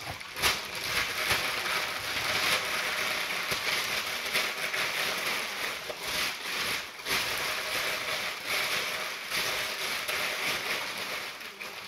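Sheets of white packing paper crinkling and rustling continuously as hands crumple them and wrap them around a silver candlestick, with a louder crackle about half a second in.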